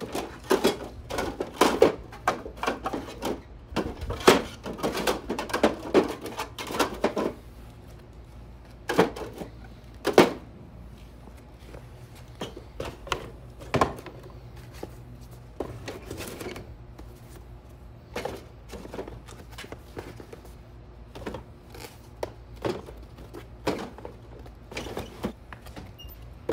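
Empty plastic filament spools clattering and knocking against each other as they are stacked into a wooden-sided wagon, followed by cardboard boxes being set down on top. The knocks come thick and fast for the first seven seconds or so, then scattered handling knocks.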